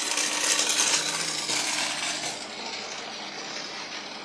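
Water from a hose running and splashing into a shallow tarpaulin pond as it is refilled. The sound is loudest for the first two seconds, then softer.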